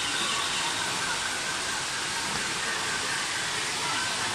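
Indistinct chatter of a crowd of visitors, with no clear words, over a steady hiss.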